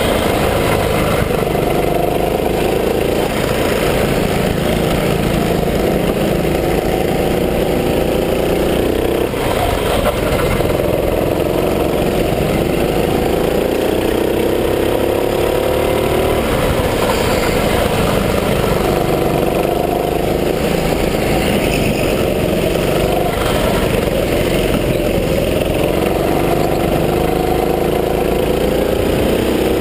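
Gas-powered go-kart engine running hard through a lap, its pitch climbing steadily along each straight and falling back as it slows for the corners, several times over.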